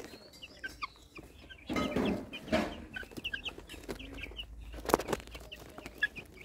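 A flock of white chickens clucking, with many short high calls scattered throughout. A louder burst comes about two seconds in, and a single sharp tap near five seconds.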